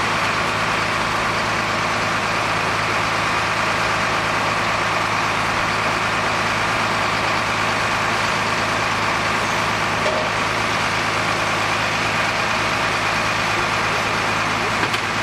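Fire engine's diesel engine running at a steady idle, an even, unchanging hum.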